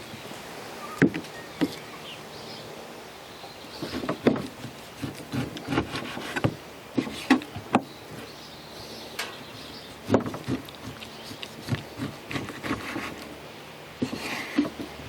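Irregular knocks and short scrapes of a knife and meat on a cutting board as a strip loin is sliced into steaks and the steaks are set on a pile.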